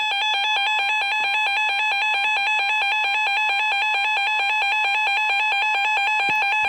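Emergency Alert System two-tone attention signal: a harsh, steady alarm tone, held unbroken. It heralds an emergency warning about to be read out, here a severe thunderstorm warning.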